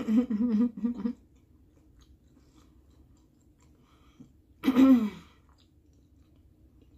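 A woman's closed-mouth vocal sounds: a quick string of short 'mm-mm-mm' notes in the first second, then a single falling 'hmm' a little before five seconds in.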